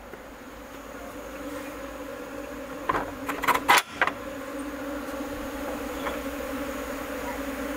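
Swarm of bees humming steadily, growing louder as it gets closer. About three seconds in, a few sharp loud clacks as the barred door is opened.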